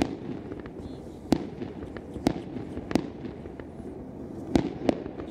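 Aerial fireworks shells bursting overhead: six sharp bangs at uneven spacing, two of them close together near the end, over a continuous background noise of other fireworks going off.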